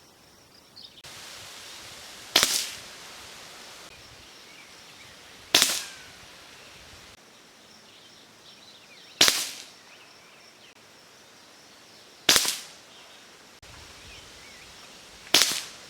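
Hatsan Factor RC .22 pre-charged pneumatic air rifle, with a shrouded barrel, firing slugs: five sharp shots about three seconds apart, each with a short fading tail.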